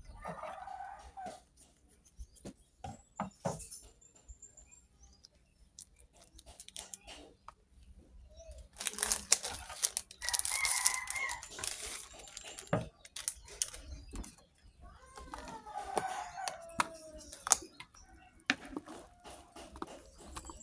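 A rooster crows in the background, twice: once about ten seconds in and again around fifteen seconds in, each call falling in pitch at the end. Between and over the crows come the crinkle and rustle of plastic seasoning sachets being handled and cut open with scissors, with scattered small clicks and knocks.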